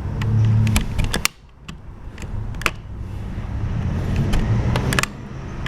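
Utility knife cutting and scraping at the leftover plastic of a broken door-handle stub, giving scattered sharp clicks over a steady low hum. The hum drops out briefly just over a second in.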